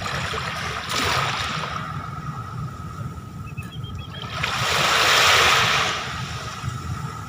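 Ocean surf rolling onto the beach: the wash of the waves swells twice, loudest about five seconds in, over a steady low rumble and a thin steady high tone.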